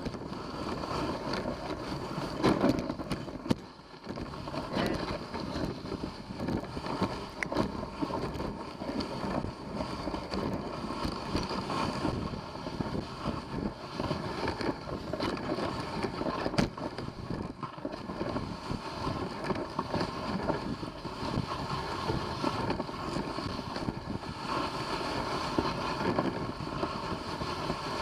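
Dog sled travelling along a trail: a steady rushing noise with wind on the microphone, and scattered small knocks and rattles.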